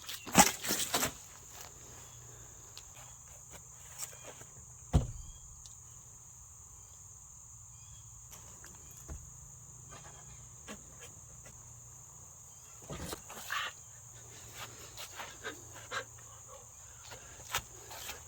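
Steady high-pitched insect drone, the chirring of crickets or similar insects, with a few sharp knocks: the loudest just after the start and about five seconds in, more around two-thirds of the way through.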